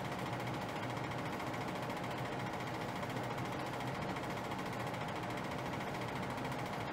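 A steady mechanical whir with a faint constant hum, unchanging throughout.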